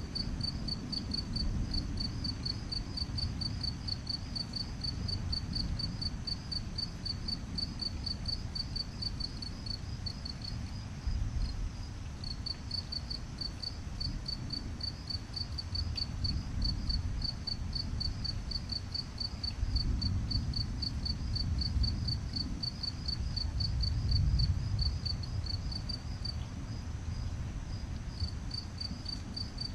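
Night insects chirping in a steady, high, even pulse of several chirps a second. Underneath runs a low rumble that swells a few times.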